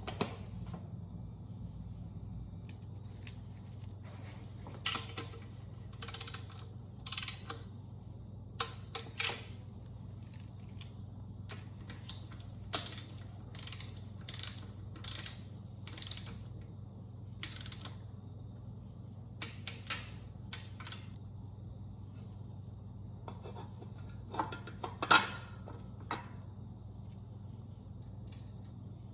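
Scattered metallic clicks and taps of hand tools and small engine parts being handled, over a steady low hum; one sharper knock stands out about three-quarters of the way through.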